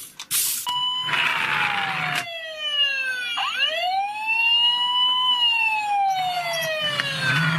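Electronic siren sound from a toy ambulance, wailing in slow glides: a falling tone, then a sweep back up and a long fall again. A short burst of whirring, rushing noise comes in about a second in.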